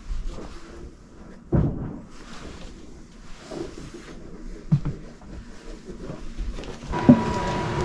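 Clothes on hangers being pushed along a closet rod: rustling, with a few knocks of the hangers, the loudest about a second and a half in. Near the end a steady hum starts.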